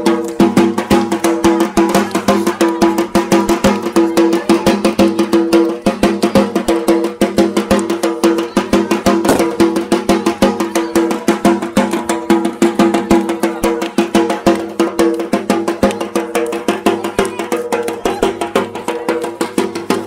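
Loud percussion music: fast, steady drumming with several strikes a second over a held droning tone.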